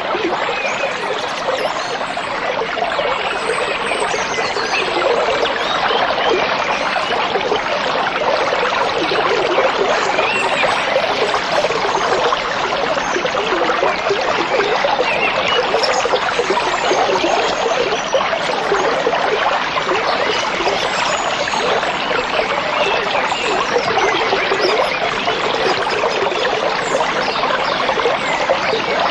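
Stream water trickling and babbling steadily.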